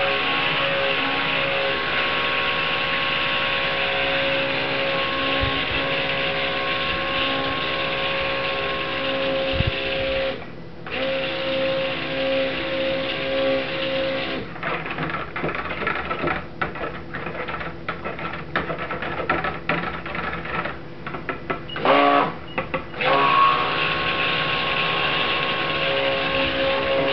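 Handheld stick blender running steadily with a whining hum, its shaft churning cold-process soap batter in a plastic bucket. The motor stops for a moment about ten seconds in. From about halfway it is mostly off for several seconds, with irregular knocks and clatter, then it runs steadily again near the end.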